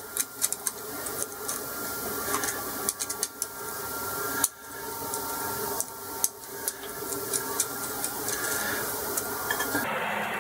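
Small clicks and taps of a screwdriver working the terminal screws of ceramic connector blocks, with the wires and blocks being handled, over a steady background hum.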